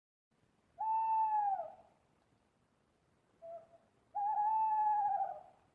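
Owl hooting: two long, drawn-out hoots, each about a second, with a short faint note between them.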